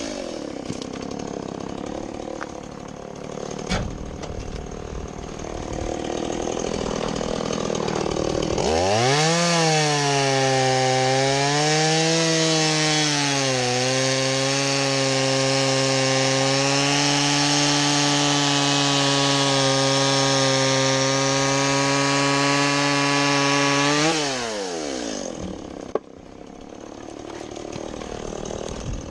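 Two-stroke chainsaw idling, then revved up about eight seconds in and held at high revs for about fifteen seconds while cutting wood, the pitch dipping once early on, before it drops back to idle.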